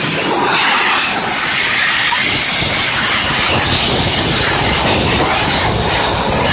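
Steady, loud hiss of a high-pressure steam jet from a CW-D32 electric steam cleaning machine spraying a car engine.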